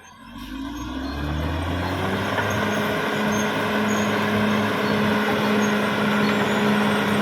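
Caterpillar D6R XL bulldozer's diesel engine revving up over about two seconds, then running steadily at high revs.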